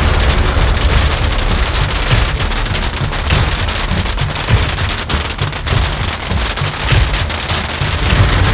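A massive beehive firework rack of bottle rockets firing all at once: a loud, continuous, dense crackle of hundreds of rockets and small bangs, with a low rumble underneath.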